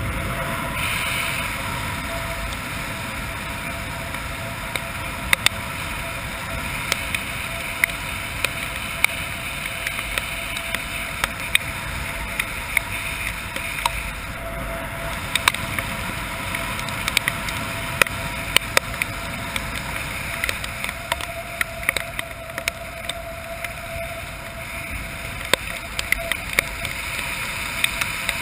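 Air rushing steadily past the camera of a skydiver descending under a parachute canopy in rain, with many sharp ticks at irregular intervals, typical of raindrops striking the camera.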